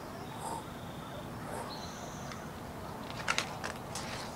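A hardcover picture-book page being turned: a short papery rustle and flap about three seconds in, over a steady background hiss with faint high chirps.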